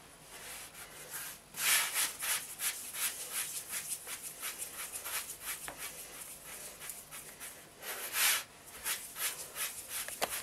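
Hands rolling balls of dough on a floured wooden board: a run of soft rubbing and brushing strokes, with two louder sweeps about two seconds in and around eight seconds.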